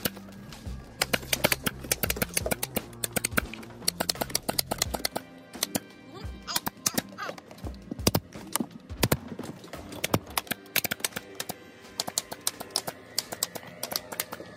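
A pneumatic nailer firing again and again, a fast string of sharp shots, fastening vinyl siding at the bottom of a wall. Background music plays under it.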